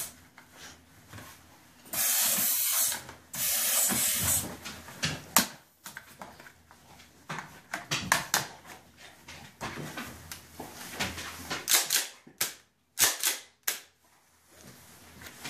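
Airsoft gas hissing in two bursts of about a second each as a gas airsoft gun is charged, followed by a run of sharp clicks and knocks from the gun and its parts being handled.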